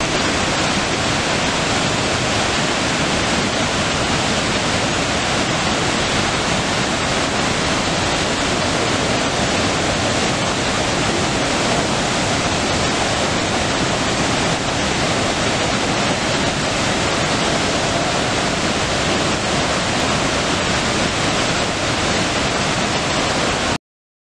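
Large waterfall plunging over a cliff: a loud, steady rush of falling water that cuts off suddenly near the end.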